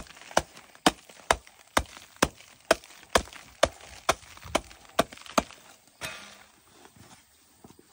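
A knife blade chopping into the dry, crumbly earth of a broken-up termite mound on a sack, breaking it apart to get at the termites inside: sharp, even chops about two a second that stop about five and a half seconds in.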